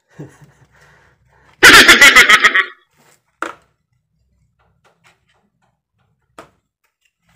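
The black strap of an action-camera chest mount being worked by hand: a loud, rapid rasping zip about a second long, then two single clicks.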